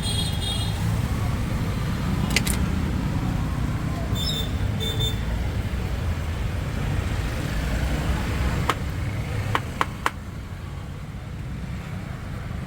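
Steady street traffic rumble. About four seconds in come a couple of short high beeps, and nearer the end a few sharp clicks or knocks.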